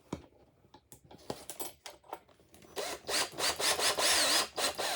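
Scattered light knocks, then a cordless drill running into the chest's wood panel for about two seconds, its whine wavering up and down in pitch.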